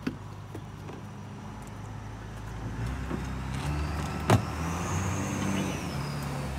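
A boat engine idling, with its pitch shifting a little in the second half. A single sharp knock comes about four seconds in.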